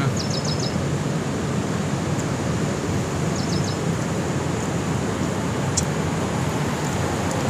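Steady rush of sea surf mixed with wind noise on the microphone. Two short runs of faint high chirps come near the start and again about three seconds in.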